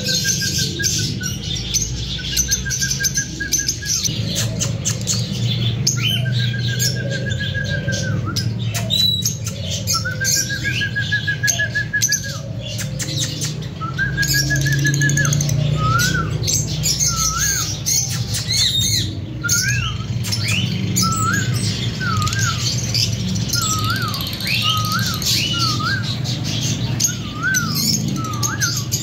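Pet lovebirds calling: several rapid trilled calls in the first half, then a run of short up-and-down chirps, roughly one or two a second, with many small clicks and a steady low hum behind.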